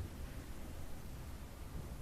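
Faint room tone: a steady hiss with a low hum, and no distinct event.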